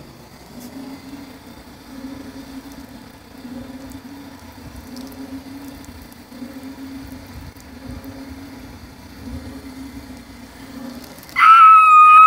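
A low, steady hum, then near the end a sudden loud, high-pitched squeal held on one pitch for about a second.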